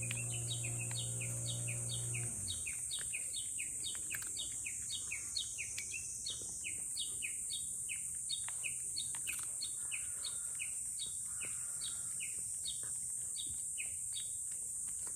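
A bird calling over and over, a short falling note about two to three times a second, over a steady high-pitched buzz. A low hum stops about two seconds in.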